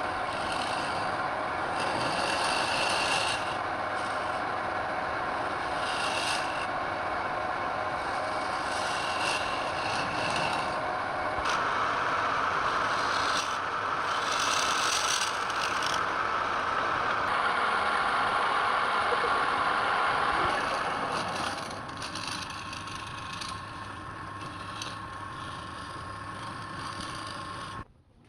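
Wood lathe running with a turning tool scraping the spinning wood in repeated strokes. The sound gets quieter about three quarters of the way through and cuts off abruptly just before the end.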